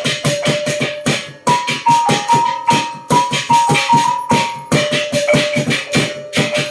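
Music with a fast, even percussive beat under a held note; for about three seconds in the middle the held note gives way to a short higher melody of stepping notes, then returns.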